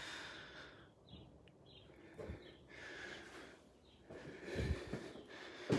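Faint breathing and phone-handling noise close to the microphone, then a few soft footstep thuds on the floor near the end as the walker moves through a doorway.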